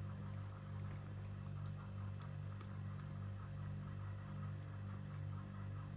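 Steady low electrical hum, like mains hum, holding an even pitch with nothing else happening.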